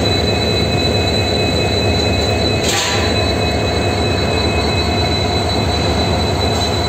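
WDG4 (EMD GT46MAC) diesel locomotive passing close by under power: its 16-cylinder two-stroke EMD 710 engine gives a deep, fast-pulsing rumble over a steady high whine. A short burst of hiss comes about three seconds in.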